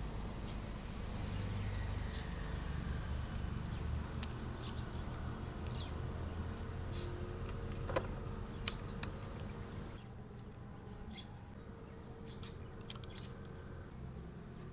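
Scattered light clicks and taps of bicycle parts being handled as a gear shifter and its cable are fitted, with two sharper clicks past the middle, over a low steady background rumble.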